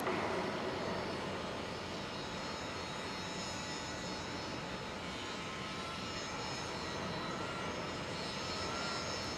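Steady industrial din of a shipyard: a continuous wash of machinery noise, with a faint high whine that comes and goes in the second half.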